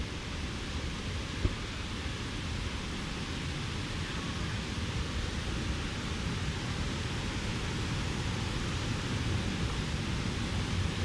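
Steady rush of water from a waterfall, an even hiss with no rhythm, broken once by a brief tap about a second and a half in.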